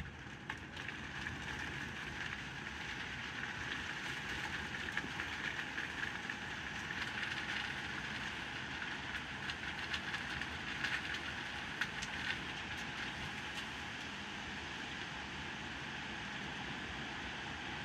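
Heavy rain pouring steadily, with scattered sharp ticks of drops hitting close by.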